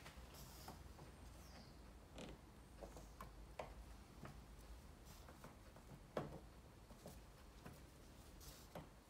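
Faint, scattered squeaks and clicks of cork stoppers being twisted and pushed into glass test tubes by gloved hands, with one sharper click about six seconds in.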